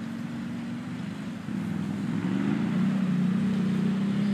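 Quad bike engine running hard under load as it churns through deep mud, its note getting louder and wavering in pitch about a second and a half in.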